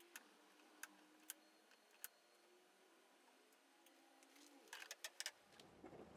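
Near silence with a few faint, sharp clicks and taps, several in quick succession about five seconds in, over a faint hum; a low rumble comes in shortly before the end.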